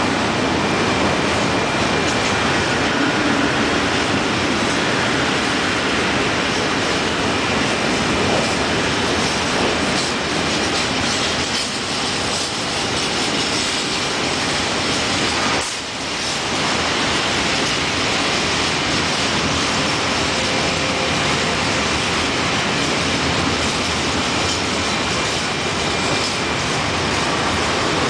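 A freight train of open-top wagons rolling past close by, its wheels clattering steadily over the rails, with a faint thin high tone under the noise. The noise dips briefly about sixteen seconds in.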